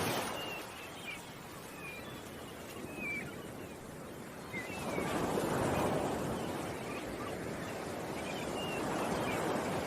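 Ocean waves washing in, swelling again about halfway through, with small birds chirping briefly now and then above them.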